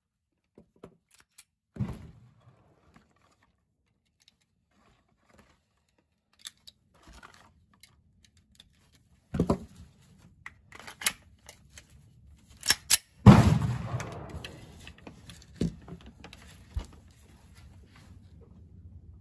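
Glock 43x 9mm pistol being handled and reloaded: scattered small metallic clicks, then two sharp clacks and a single loud shot with a long echoing tail about two-thirds of the way through.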